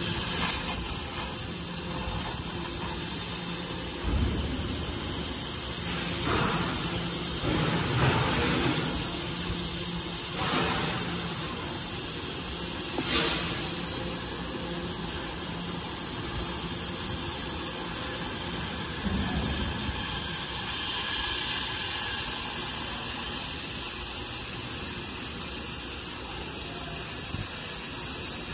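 CNC oxy-fuel cutting torch hissing steadily as its oxygen jet burns through thick steel plate, with a few brief louder surges in the first half.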